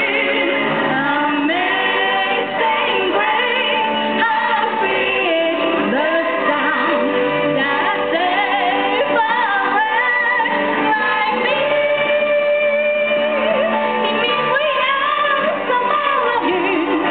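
A woman singing a Chinese song over steady instrumental accompaniment, the melody held and gliding between notes.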